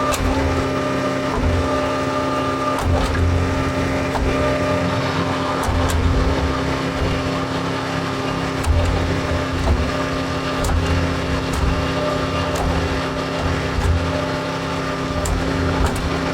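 John Deere 410 backhoe loader's diesel engine running steadily under load, a constant whine over uneven low rumbling, with a few sharp clicks.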